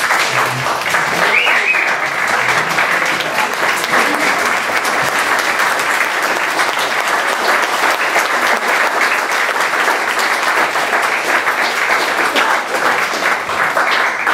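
An audience applauding: many hands clapping at once, holding steady.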